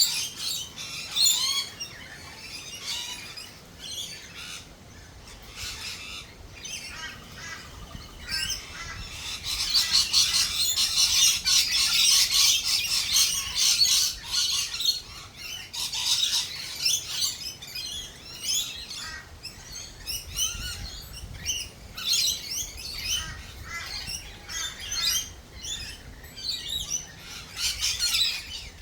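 Several birds chirping and squawking in quick, overlapping calls, swelling into a dense burst of chatter about nine seconds in that lasts several seconds.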